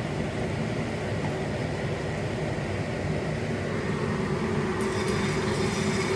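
Hot oil sizzling steadily in a kadai over a low, even rumble. From about five seconds in, sharper crackling spatters come as a masala-coated fish piece goes into the oil to fry.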